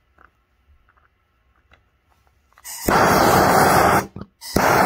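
Handheld gas torch's flame rushing loudly, switched on twice: about a second and a half of steady roar a little under three seconds in, a short break, then a second burst near the end.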